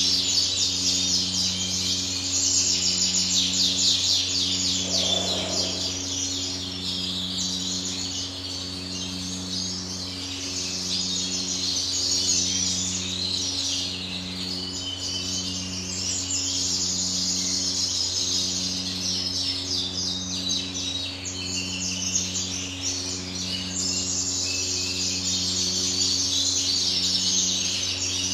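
Many caged birds chirping and singing at once, a dense, continuous chatter of trills and tweets. Under it runs a steady low electrical hum that pulses regularly, a little under once a second.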